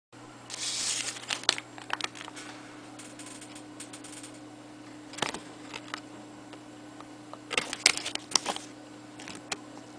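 A folded paper note and a crumpled printed wrapper handled and crinkled close to the microphone: short rustles and crinkles, heaviest about a second in and again around eight seconds, over a faint steady electrical hum.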